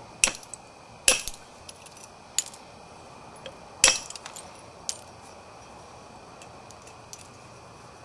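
A billet striking a Florida coral preform, knapping off flakes: four sharp, clinking strikes roughly a second apart, then a lighter tap about five seconds in.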